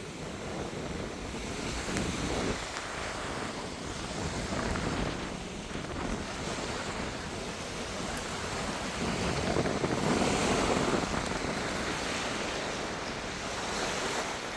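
Gusty wind rushing over the microphone, rising and falling in surges, the strongest about ten seconds in, ahead of a thunderstorm.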